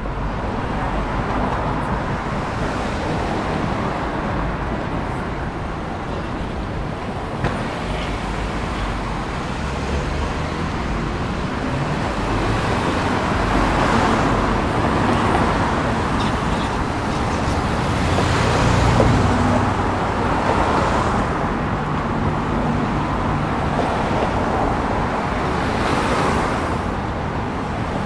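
City street traffic: a steady mix of car engines and tyre noise, swelling and easing as vehicles pass, loudest about two-thirds of the way in.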